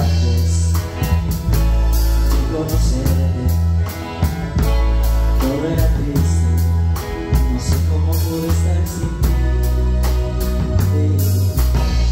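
Live band playing a song with a steady beat: electric guitar, electric bass, drum kit, timbales, congas and keyboards.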